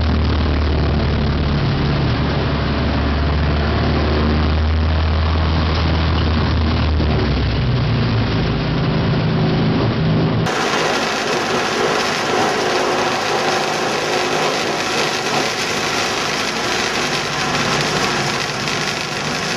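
Race car engines running: a steady, low engine drone for about ten seconds, then an abrupt cut to a noisier, hissier engine sound without the low drone.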